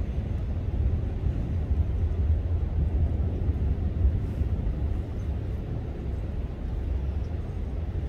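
Low, steady rumble of distant traffic.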